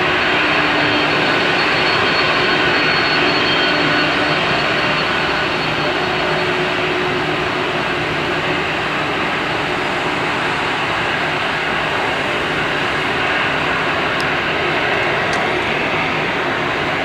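Boeing 767-300 jet engines running at taxi idle: a steady rushing hum with a faint high whine that fades after the first few seconds as the jet turns past.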